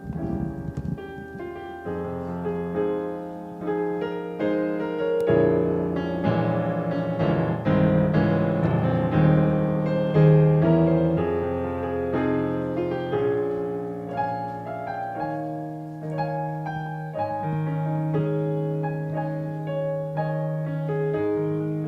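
Piano playing sustained chords and a melody: the instrumental introduction to a choir anthem, with no voices yet.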